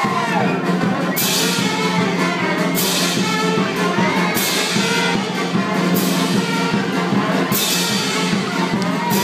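Lively brass band music, horns playing a tune over a steady beat, with a crash on the beat about every second and a half.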